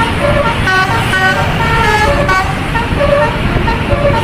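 Bus 'telolet' multi-tone horn playing a quick melody of short, shifting notes over engine and traffic noise.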